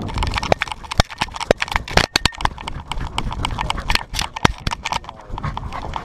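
Harness-mounted GoPro knocking and rattling against its rig in quick, irregular strikes, jolted by each stride of the corgi wearing it as it moves over the grass.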